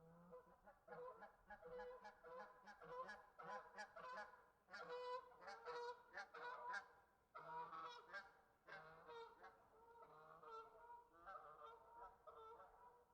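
Faint recording of a group of geese honking again and again, the calls overlapping, busiest and loudest about four to seven seconds in.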